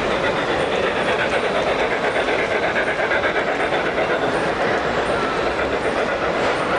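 O gauge model freight train, led by a steam locomotive, running past on the layout: a steady rolling rumble with rapid clicking of the wheels over the rail joints as the freight cars go by.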